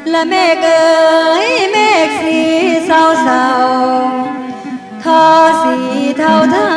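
A woman singing lam phloen, a style of northeastern Thai mor lam, with band accompaniment; her voice slides and ornaments between held notes.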